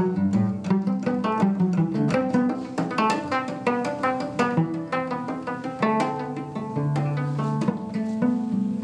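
Solo cello played pizzicato: a quick run of plucked notes, with a few longer low notes ringing in the second half.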